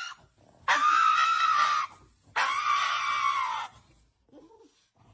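A dog screaming twice in long, drawn-out cries, each lasting about a second, in protest at having its claws clipped.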